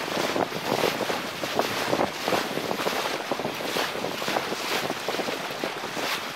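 Wind buffeting the microphone in irregular gusts, over the rush of water along the hull of a Lancer 25 sailboat under sail in an 8–10 knot breeze.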